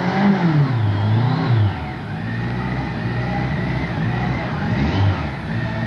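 Grinnall Scorpion III's BMW K100 four-cylinder motorcycle engine revving up and down, then running at a steadier pitch from about two seconds in.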